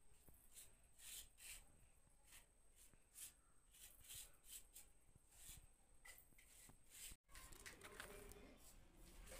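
Faint, irregular scraping strokes of a mason's hand tool working a cement surface, a few each second. The sound cuts out for an instant about seven seconds in.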